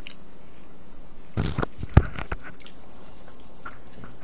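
A brief rustling burst, then a single sharp knock about two seconds in, followed by a few fainter clicks.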